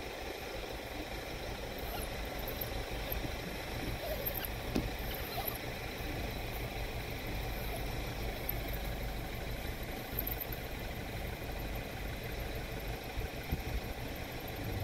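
A vehicle engine idling steadily, with a few faint high chirps above it.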